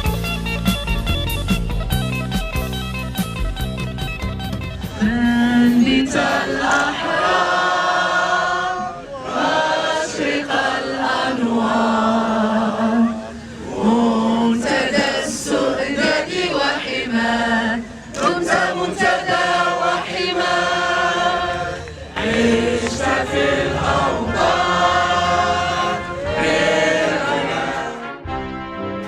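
Background music: quick plucked guitar notes for the first few seconds, then, from about five seconds in, long held choral notes in phrases with short breaks.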